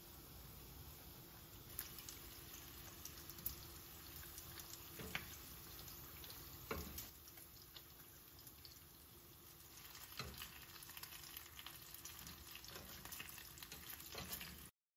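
Faint frying hiss from food in a pan, with scattered light clicks and knocks; it cuts off suddenly near the end.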